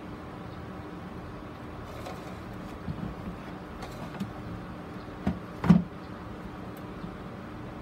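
Black plastic grid mounting board being handled and set back down on a plastic tray: a few light plastic knocks, the loudest two close together near the end, over a steady background hum.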